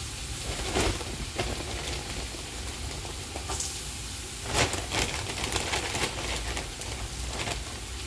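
Frozen jute mallow (saluyot) leaves sizzling as they are crumbled by hand into hot oil with garlic and coriander in a large stainless stockpot. There is a steady hiss, broken by several short knocks as clumps drop in.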